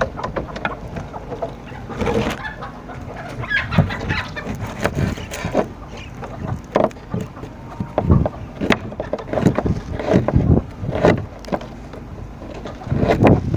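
Backyard chickens clucking, with scattered sharp knocks and handling noises among the calls.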